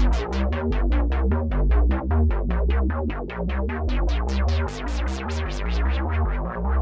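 Behringer Poly D analog synthesizer playing a fast sequenced or arpeggiated pattern of short plucked notes, about seven a second, over a deep bass. The brightness of the notes dips partway through and opens up again near the end, as from a filter sweep.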